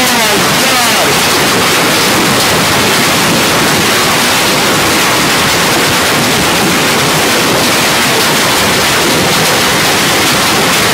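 Hailstorm with heavy rain: a dense, steady, loud rush of hailstones and rain pelting hard surfaces, with countless small impacts.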